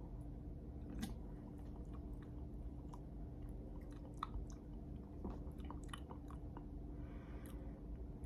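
Faint scattered lip smacks and mouth clicks of a person tasting soda after drinking from a can, over a low steady hum.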